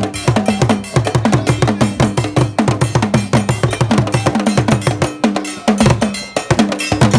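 Kete drum ensemble playing a fast, dense rhythm of interlocking drum strokes, with a bell knocking time over the deep drum notes.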